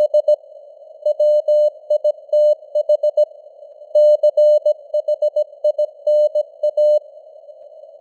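Morse code (CW) sent at 17 words per minute: a single steady mid-pitched tone keyed in dots and dashes, in groups with short pauses between words, over a narrow band of simulated radio static. The keying stops about seven seconds in, leaving only the static hiss.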